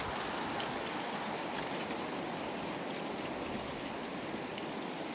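Steady rushing wash of surf breaking on the shore, with a few faint ticks over it.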